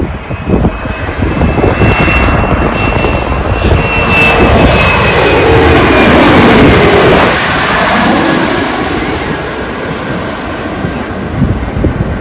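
Twin-engine American Eagle regional jet flying low overhead on final approach with its landing gear down. A loud jet roar builds to a peak about six or seven seconds in, with a sweeping whoosh as the jet passes directly overhead, then eases off.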